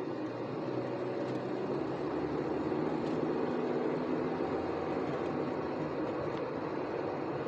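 Engine and road noise inside a moving vehicle's cab, a steady drone that swells slightly partway through.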